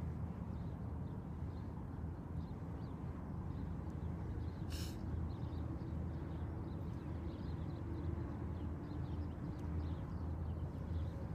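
Steady low outdoor rumble, with a short sharp call-like sound about five seconds in and a faint steady hum through the middle.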